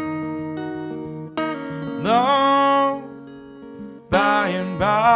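Acoustic guitar playing a folk song intro. A wordless voice slides up into a held note about two seconds in, and comes in again with wavering notes near the end.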